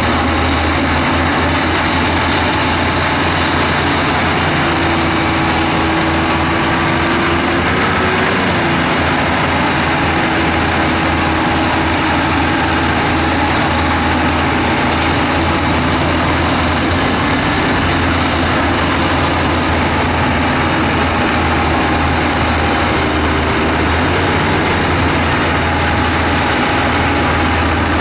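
Heavy diesel engine of earthmoving equipment running steadily under load, with a dense mechanical clatter and, a few seconds in, faint whining tones that rise and fall.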